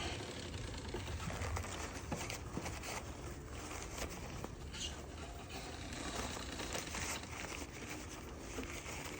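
Faint rustling with scattered light clicks as small carburetor parts of a lawn mower are handled.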